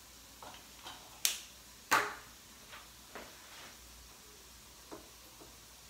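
Kitchen clatter: a series of separate sharp clinks and knocks of utensils and dishes on a counter, the two loudest a little over a second and about two seconds in, then fainter taps.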